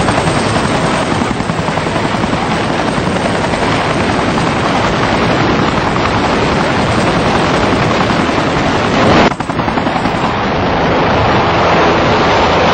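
Helicopter hovering low over a pond, its rotor chopping loudly and steadily, with a brief drop about nine seconds in.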